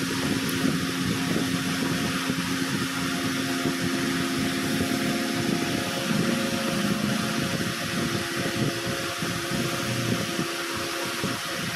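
High-speed electric fan running: a steady rush of air over a motor hum whose pitch drops slightly about halfway through.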